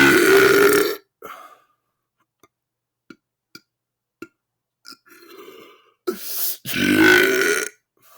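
A man belching deliberately and loudly: one long belch of about a second right at the start, then another about seven seconds in, with a shorter, quieter belch just before it.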